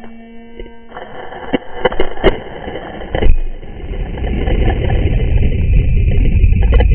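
A person jumping into lake water with an action camera in a waterproof housing: a few sharp splashing knocks from about one and a half to three seconds in, then a low underwater rumble of churning water and bubbles.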